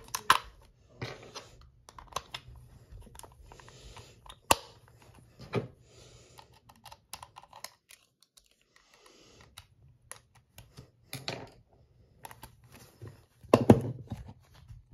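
Batteries and a plastic battery-compartment cover being handled in a plush toy: an irregular run of small plastic clicks and taps as AA cells are pushed into place and the cover is fitted. A louder cluster of knocks and handling noise comes near the end.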